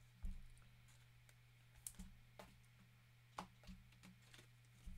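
Hockey trading cards being handled and flipped through: faint scattered clicks and taps of card edges, over a low steady hum.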